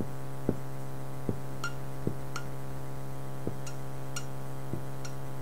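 Dry-erase marker tapping and scraping against a whiteboard in short writing strokes, a string of small clicks about a second apart, over a steady electrical hum.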